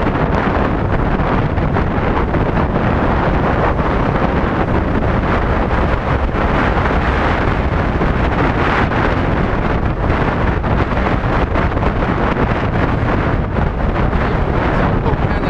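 Wind buffeting the camera microphone on a moving motor scooter: a loud, steady rush of noise, heaviest in the low end, with road and engine noise blended underneath.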